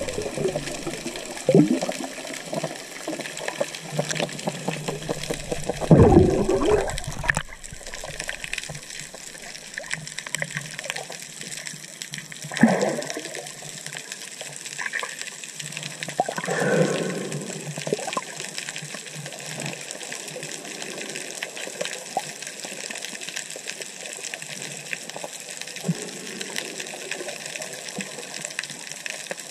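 Underwater sound through a GoPro housing: a steady watery hiss broken by several gurgling bursts of bubbles, the loudest about six seconds in and others near 13 and 17 seconds, typical of a scuba diver's exhaled regulator bubbles.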